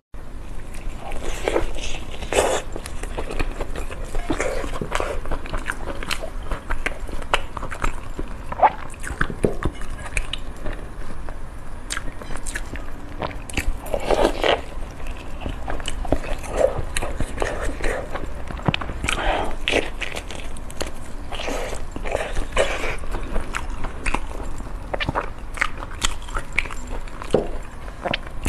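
Close-miked eating: repeated bites and chewing with short crunchy crackles, as soft burger and then crusty fried food are bitten and chewed.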